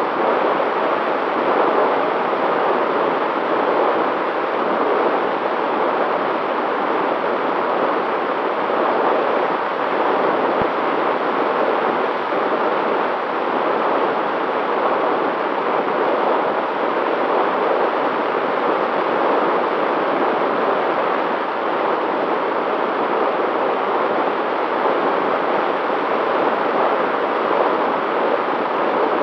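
Steady rush of airflow and motor noise from a long-range FPV aircraft in flight, picked up by its onboard camera, with a faint steady whine underneath.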